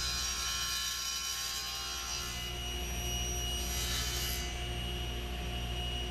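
Table saw running with a steady high whine while its blade cuts a 45-degree miter through a walnut board for the first two and a half seconds or so. A second short burst of cutting noise comes about four seconds in.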